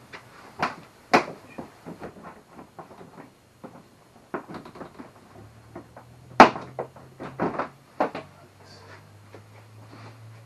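Scattered knocks and clunks of plastic body parts being handled as an ATV's seat and side panel are taken off, with one sharp thunk about six seconds in.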